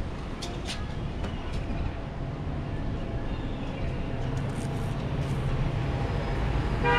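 Low steady rumble of street traffic, with a few faint ticks in the first two seconds and a short car horn toot at the very end.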